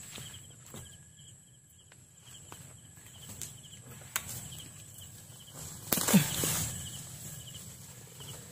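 Night insects chirping in a steady, evenly repeating pattern, with scattered knocks and rustles from digging in undergrowth with a long-handled tool, and a louder knock about six seconds in.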